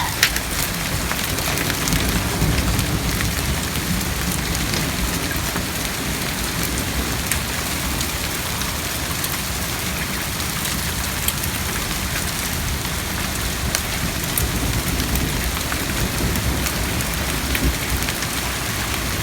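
Heavy rain pouring steadily in a severe thunderstorm, with hailstones striking hard surfaces in scattered sharp clicks.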